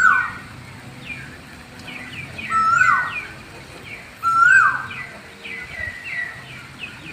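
Bird calls: three loud, clear calls, each rising, holding, then sweeping down in pitch, at the start, nearly three seconds in and about four and a half seconds in, with softer, higher chirps between.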